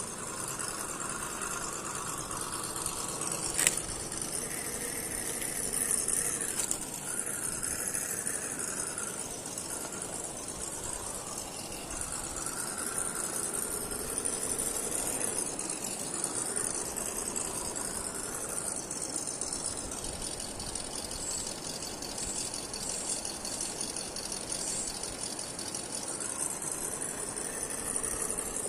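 1:10-scale RGT EX86010-CJ RC crawler with a hard Jeep Rubicon body driving over rough ground: its electric motor and gears whine, rising and falling with the throttle, while the body and chassis rattle. A single sharp knock comes about four seconds in.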